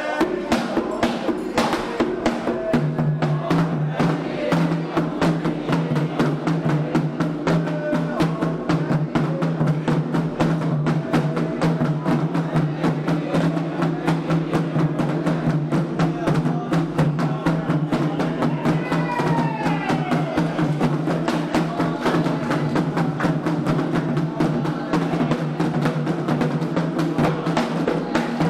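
Candomblé ritual drumming on atabaque hand drums, fast, dense and continuous, with a steady low tone underneath from about three seconds in.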